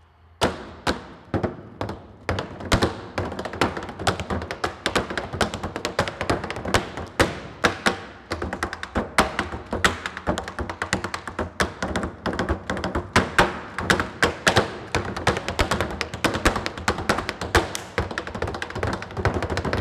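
Tap shoes striking a wooden tap board in fast, continuous rhythmic patterns, with sharp accented strikes several times a second, as two dancers trade improvised tap phrases.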